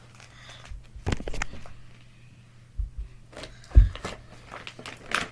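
Handling noises: three dull thumps, the loudest just before the four-second mark, among lighter clicks and rustling as slime-making supplies are moved about and set down.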